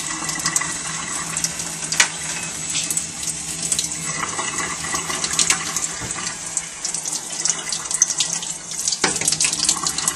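Water from a faucet running into a stainless steel sink and splashing over a forearm held under the stream, with scattered small clicks and splashes.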